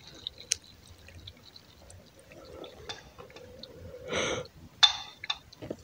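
Thick peanut paste being tipped and scraped from a bowl into a pot of chicken in tomato sauce: soft wet plops and squelches. A few light clicks of a metal slotted spoon against the bowl and pot, the loudest wet sound about four seconds in.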